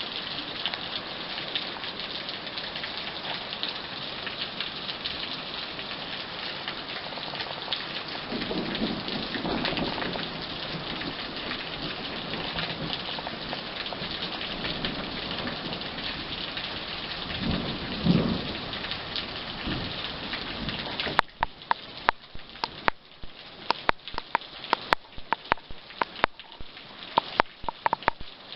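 Steady heavy rain with thunder rumbling twice, about eight seconds in and again around the eighteen-second mark, the second rumble the louder. About three-quarters of the way through, the even hiss of rain thins out into a patter of sharp, separate drop hits.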